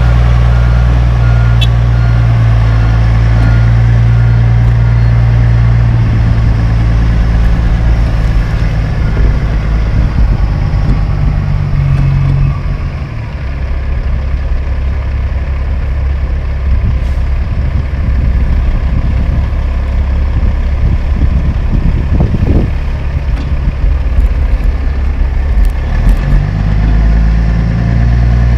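Diesel engine of a CAT-powered Kenworth T800H tandem dump truck, running loud through its exhaust stacks as the truck pulls away. It falls off about halfway through as the truck moves off, then picks up again near the end as the truck comes back under power.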